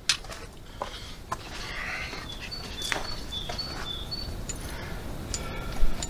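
A bird repeating a short two-note call, a high note then a slightly lower one, over and over from about two seconds in. Scattered knocks and scuffs of footsteps on rocky ground sound under it, the sharpest near the start and near the end.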